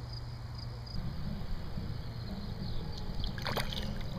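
Small bass splashing at the pond surface as it is reeled in, with a short burst of splashing about three and a half seconds in over low rustling handling noise. Crickets chirp faintly underneath.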